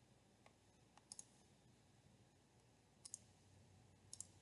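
Near silence: faint room tone with a few soft clicks, about a second in, about three seconds in and just before the end.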